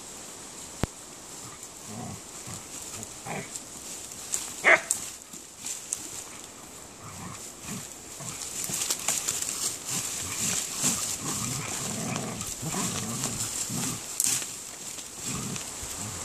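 Two dogs snuffling and sniffing through ferns and undergrowth, with leaves and twigs rustling as they push through. A short sharp sound stands out about four and a half seconds in.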